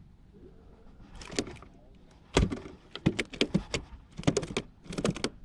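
Irregular knocks and clatters of gear being handled on a kayak: one short clatter a little over a second in, then a quick run of sharp knocks from about halfway through.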